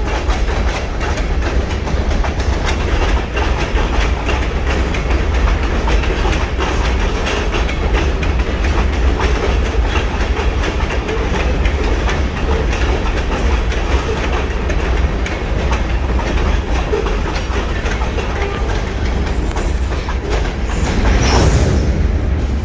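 Freight train rolling past, its wheels clicking over the rail joints above a steady low rumble, with a brief louder swell near the end.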